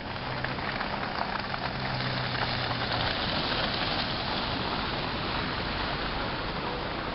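Toro Power Shovel electric snow shovel running and throwing snow: a steady hiss with fine crackling, and a low hum that drops out about three seconds in while the hiss carries on.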